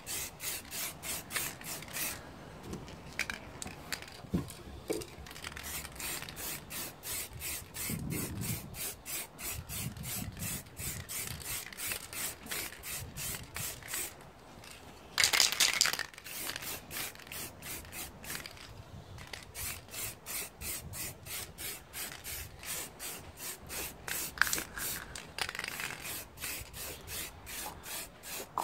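Aerosol spray-paint can hissing in quick, even pulses, about three a second, with one louder, longer spray about halfway through.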